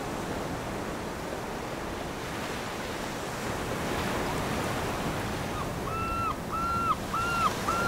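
Ocean surf washing against a rocky coast, a steady rush of waves with some wind. From about two-thirds of the way in, a series of short high-pitched notes repeats about twice a second over it.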